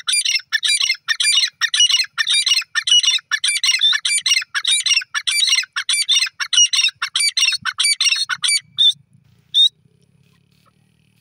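Grey francolin calling: a loud, rapid series of shrill repeated notes, about two a second, stopping about nine seconds in with one last note shortly after.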